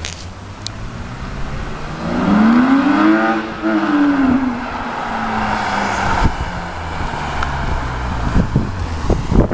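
BMW E36 323i's 2.5-litre straight-six, breathing through an ITG air filter and a Supersport exhaust, revs up and falls back about two seconds in, then runs on at a steady lower pitch. Several short sharp cracks come near the end.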